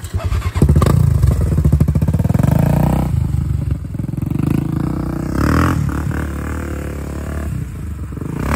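Honda 400EX ATV's single-cylinder four-stroke engine, fitted with an aftermarket exhaust, revving up about half a second in and then running at raised, uneven revs before easing off slightly near the end.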